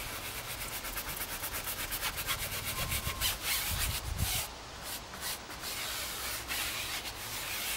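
Hand brush scrubbing a rubber tyre sidewall wet with foaming cleaner, in quick rhythmic back-and-forth strokes, several a second. The scrubbing eases briefly about halfway through, then carries on.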